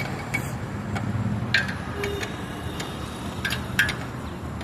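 A few sharp metallic clinks of hand tools on a Royal Enfield Meteor 350 as the rear wheel is being taken off, over a steady background hum.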